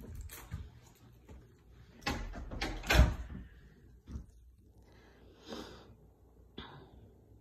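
Scattered knocks and thumps, the loudest about three seconds in, with a soft rushing sound around five and a half seconds and a sharp click near the end.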